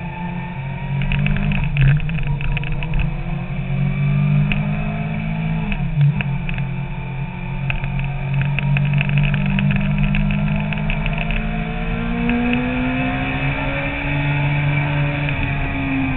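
Sport motorcycle engine running under way, heard over wind noise on the bike-mounted microphone. The engine note dips briefly about six seconds in, then climbs slowly and falls back near the end.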